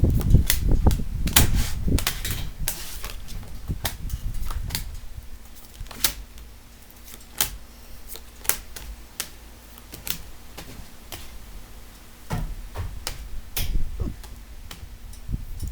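Tarot cards being handled and laid down on a table: irregular sharp clicks and taps, with rumbling handling noise during the first five seconds.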